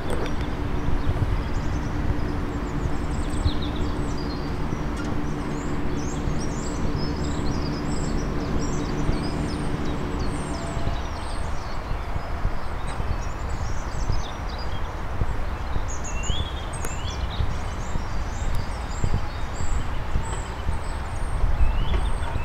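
Birds chirping and calling, with many short high notes, over a steady low outdoor rumble. A low hum is there for the first half and stops about halfway through.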